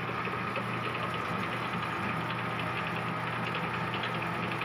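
Metal lathe running with its chuck spinning a motorcycle suspension linkage part: a steady machine hum with a thin steady high tone and faint rapid ticking over it.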